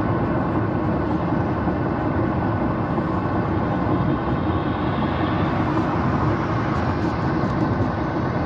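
Steady road noise heard inside a car cruising at motorway speed: tyre and engine noise through the cabin.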